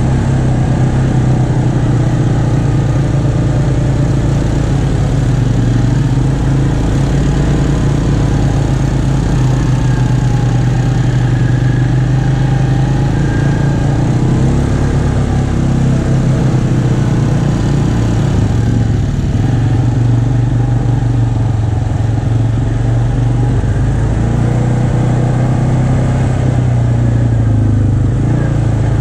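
ATV engine running at trail speed, heard from on board the moving quad, a steady loud drone whose pitch dips and rises slightly a few times with the throttle.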